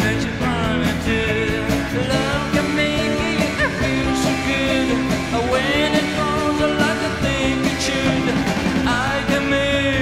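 Early-1960s-style rock and roll record playing on a turntable: a singer over a band with guitar.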